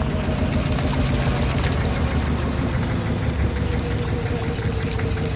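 A river boat's engine running steadily, a low even drone.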